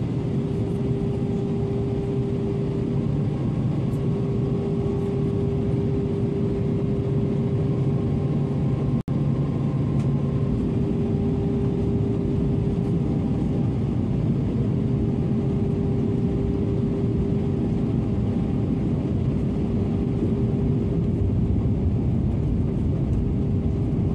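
Jet airliner cabin noise in flight: a steady engine drone and rush of air with a constant hum. The sound cuts out for an instant about nine seconds in.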